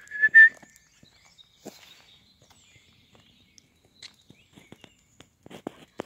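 A short, loud two-note whistle calling a dog back. A few faint steps on the gravel path come near the end.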